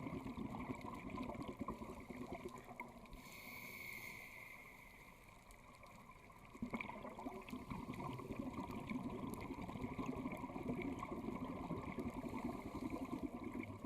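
Scuba diver breathing underwater, heard from the diver's own camera: a rumble of exhaled bubbles, a softer hiss of an inhale through the regulator a few seconds in, then the bubble rumble coming back suddenly about halfway through.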